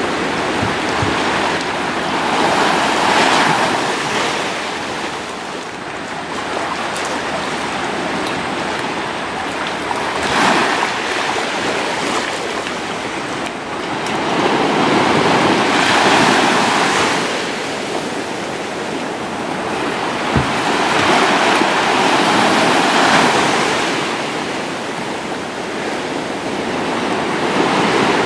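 Sea waves washing in over a shallow reef shore, a steady rush of surf that swells and eases about every six to seven seconds.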